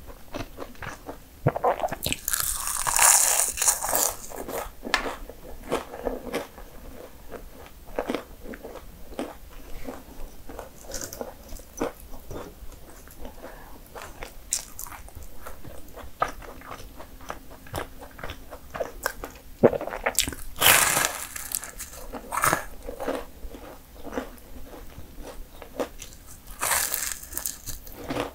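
A person biting into flaky laminated pastry and chewing it: three loud, crisp crunches, about two seconds in, around twenty seconds in and near the end, with quieter chewing and small crumbly crackles between.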